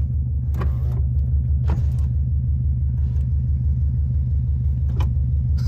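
2004 Subaru WRX's turbocharged 2.0-litre flat-four engine idling steadily, heard from inside the cabin as a low, evenly pulsing rumble.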